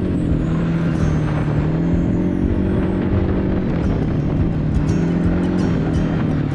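A small off-road vehicle's engine running, its pitch drifting gently up and down and rising again near the end, with background music under it.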